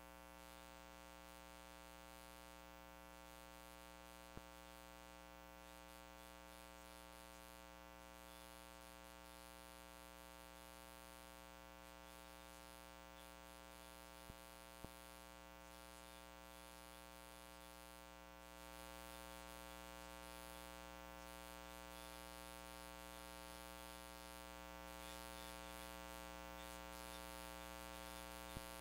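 Near silence: a faint, steady electrical hum and buzz with many overtones, with a few faint clicks.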